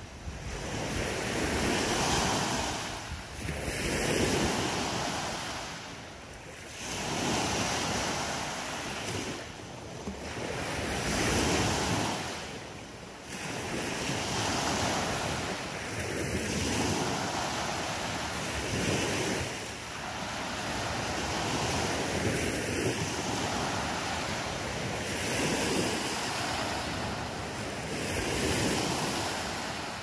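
Small waves breaking and washing up a sandy beach, the surf swelling and easing again every three to four seconds.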